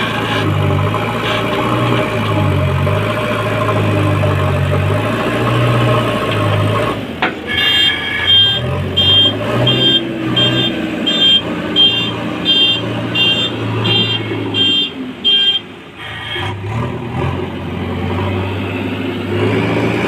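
JCB 3DX backhoe loader's diesel engine running, its pitch rising and falling as the machine works. From about eight to fifteen seconds in, a reversing alarm beeps regularly, about two beeps a second, over the engine.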